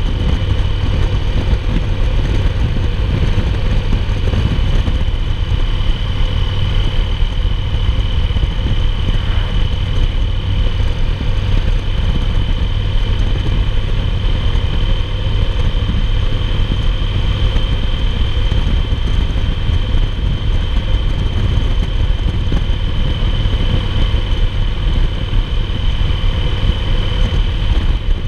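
2008 Yamaha Roadliner's air-cooled V-twin running at a steady highway cruise, under heavy wind buffeting on the microphone. A thin, steady high tone sits over it.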